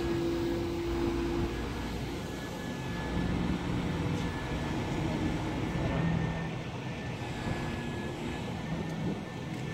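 Volvo EW205D wheeled excavator running its diesel engine and hydraulics while the material-handler boom and grapple lift and swing a load, with steady tones that change pitch as the boom moves.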